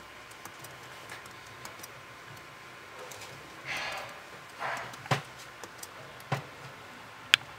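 Scattered soft clicks of typing on a laptop keyboard, with two brief rustles about four seconds in and a few sharper clicks, the sharpest near the end.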